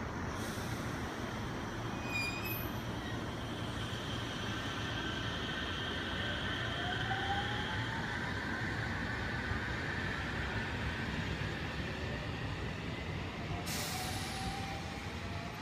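JR Central 313 series electric train pulling out, its inverter-driven traction motors whining and rising in pitch as it gathers speed over the steady rumble of wheels on rail. A short burst of hiss comes about fourteen seconds in.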